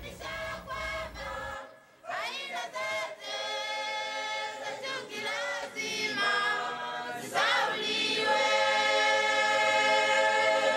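Closing theme music of choral singing. There is a short break about two seconds in, and from about seven seconds on the voices hold long chords.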